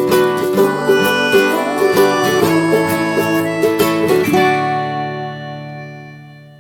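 Plucked-string instrumental music with quick picked notes; about two-thirds of the way through a final chord is struck and left to ring, fading away toward the end.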